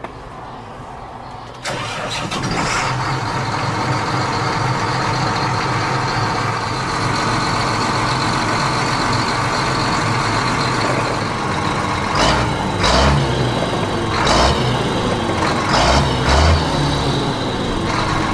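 A motor starts suddenly about two seconds in and runs steadily. Several knocks and low thuds come in the second half.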